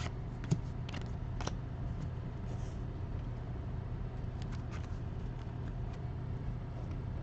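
Trading cards being handled and flipped through, with a few light clicks and ticks over a steady low hum.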